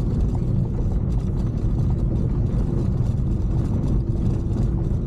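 Steady rumble of a vehicle's engine and road noise while driving along.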